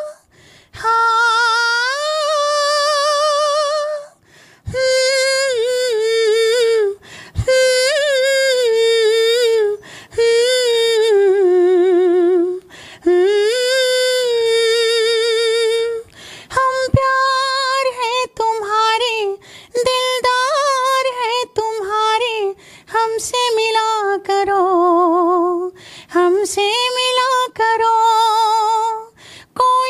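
A man singing unaccompanied in a high, falsetto female-style voice with wavering vibrato, imitating a female Hindi film playback singer. He sings in phrases of two to three seconds with short breaks for breath.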